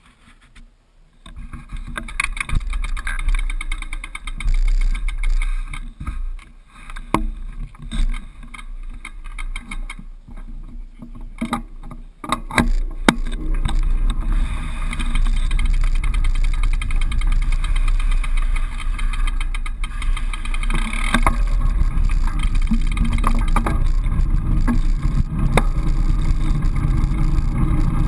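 Wind buffeting an action camera's microphone, with scattered knocks and rustles over the first dozen seconds, then a steady rushing roar of wind noise with a deep rumble as the road bike gets going.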